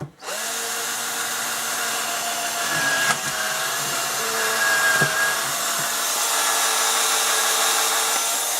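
Craftsman 13.2-volt cordless drill motor running steadily for about eight and a half seconds, starting and stopping abruptly. Its whine dips briefly in pitch with a click about three seconds in and again about five seconds in.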